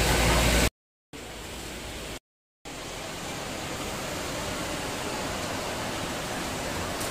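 Steady, even hiss of shop room noise, broken twice by a moment of dead silence where clips are joined. The first part is louder than the rest.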